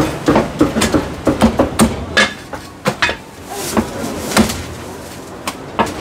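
Heavy cleaver chopping roast bird on a thick round wooden chopping block: a quick run of sharp knocks for the first two seconds, then slower, scattered strokes.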